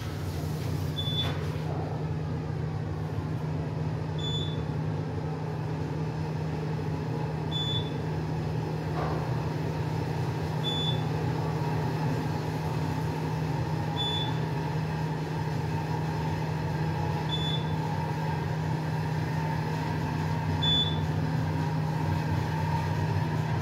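Otis Gen3 elevator car travelling upward: a steady low hum and ride noise, with a short high beep about every three seconds.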